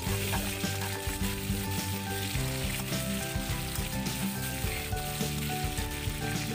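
Potato and carrot chunks sizzling as they fry in oil in a steel wok, stirred and scraped with a utensil, with background music playing under it.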